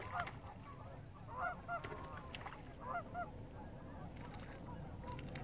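Cranes calling: short rising-and-falling calls in small groups, at the start, about a second and a half in, and again about three seconds in.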